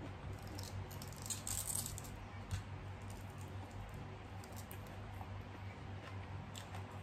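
Crisp rustling and crackling as a raw cabbage leaf is handled and torn by hand, loudest a second or so in, with a few faint clicks later. A steady low hum runs underneath.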